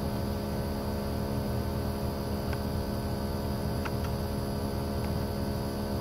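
Outdoor unit of a 9000 BTU inverter ductless mini split running at full load: a steady hum of the compressor and condenser fan, with a few faint clicks.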